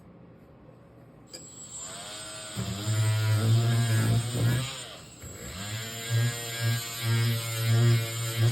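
Handheld electric power tool switched on about a second in, spinning up, then running with its pitch dipping and recovering and its level swelling in repeated pulses as it is pressed into the metal work.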